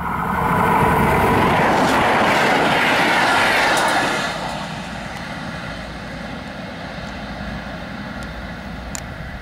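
Electric passenger train passing at speed, its wheels running on the rails. It is loud for the first four seconds or so, then drops to a quieter steady rumble as it draws away.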